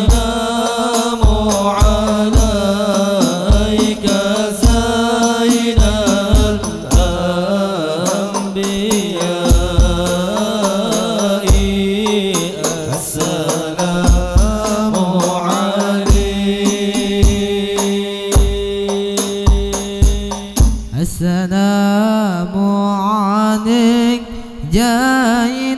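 Men's voices chanting Arabic sholawat through a PA system, accompanied by rebana frame drums and the deep strokes of a bass hand drum. The drums stop near the end, leaving a single voice singing on with sliding ornaments.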